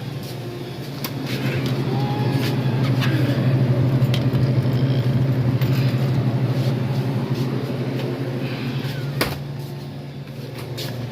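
Car running: a steady low hum of engine and road noise, with a single sharp click about nine seconds in.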